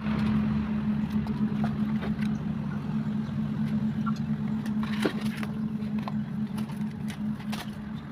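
Motorcycle engine idling steadily, with scattered light clicks and taps over it.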